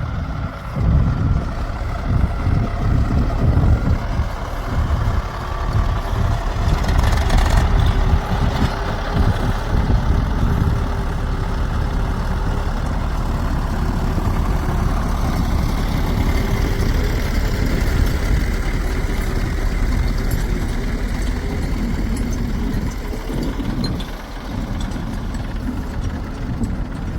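Heavy diesel engine of earthmoving or farm machinery running steadily, its level rising and falling a little.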